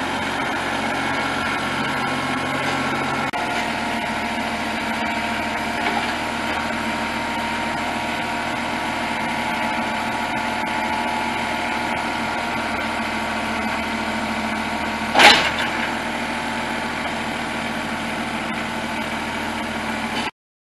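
New Holland Boomer 2035 compact tractor's diesel engine running steadily while the front loader is worked, its tone shifting a few seconds in. One sharp clank comes about fifteen seconds in, and the sound cuts off suddenly just before the end.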